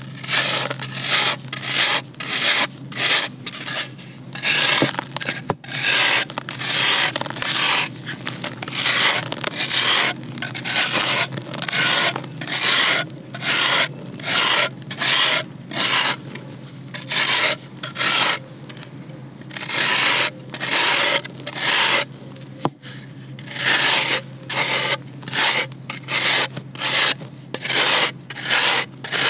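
Serrated bread knife scraped again and again across a slab of dry red dirt, rasping off crumbs. The strokes come about one and a half a second, with a few short pauses.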